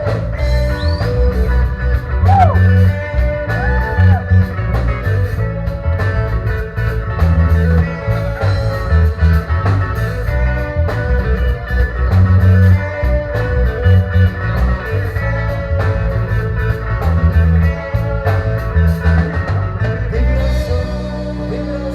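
Reggae band playing a stretch without lyrics: a pulsing bass line and drums with steady cymbal strokes, with a few sliding guitar notes about two to four seconds in.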